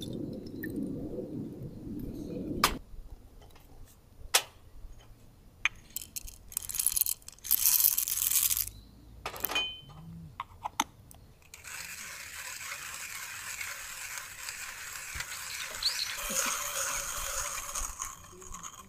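Water pouring into the base of an aluminium moka pot for the first couple of seconds, then scattered clicks and a short rush of noise. From a little past halfway, a KINGrinder hand coffee grinder steadily crunches dark-roast beans to a fine grind for moka-pot coffee, for about seven seconds.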